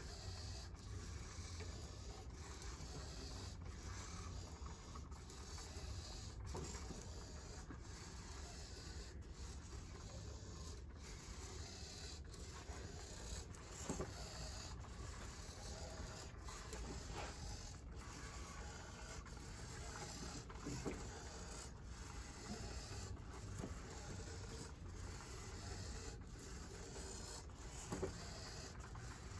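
Small joint motors of a walking bipedal robot whirring in short, evenly repeated bursts as its legs and arms move, with an occasional light knock.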